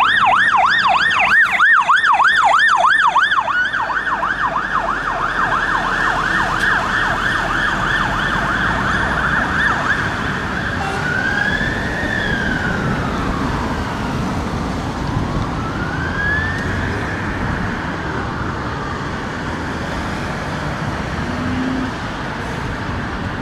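Scania Emergency One Scorpion fire engine's electronic siren on a fast yelp, loud as the truck passes close and then quieter as it draws away. About halfway through it switches to a slow wail that rises and falls twice, over traffic noise.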